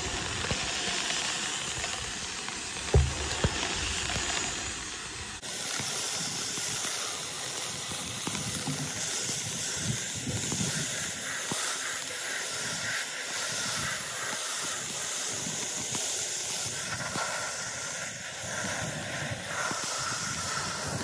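Hand-held sandblaster nozzle blasting #4 sand with compressed air against a painted aluminum boat hull, a steady hiss as it strips the paint. A short thump comes about three seconds in, and the hiss turns brighter with less low rumble a couple of seconds later.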